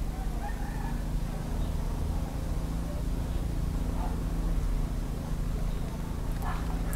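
Outdoor background: a steady low rumble, with a few faint, brief distant calls.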